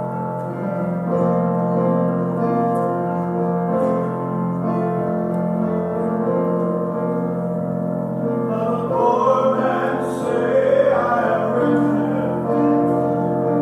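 Piano playing a slow introduction to a church choir song; about two-thirds of the way through, singing voices come in over the piano.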